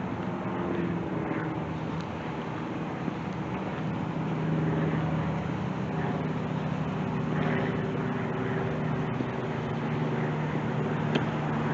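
Steady low engine hum of a motor vehicle, growing a little louder about halfway through, with a couple of faint clicks near the end.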